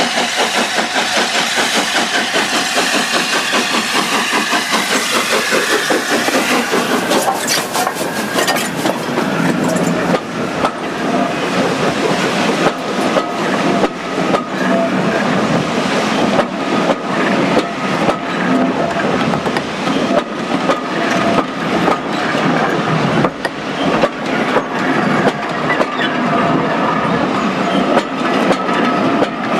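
LNER A4 three-cylinder streamlined steam locomotive 4464 Bittern running past with its train: a dense rush of fast exhaust beats and running noise for the first several seconds, then the teak coaches rolling by with regular clickety-clack of wheels over rail joints and a thin steady ringing note.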